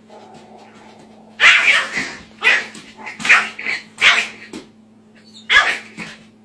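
A dog barking in sharp, high-pitched bursts, with several barks starting about a second and a half in, as the dogs square off over a food bowl. A steady low hum runs underneath.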